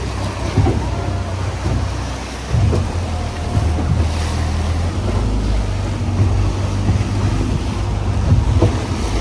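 Small open tour boat under way: the engine's steady low drone under the rush and splash of choppy sea along the hull, with wind buffeting the microphone.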